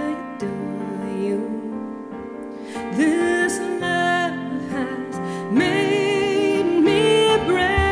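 A slow song performed live: a woman sings long held notes with vibrato over steady instrumental backing.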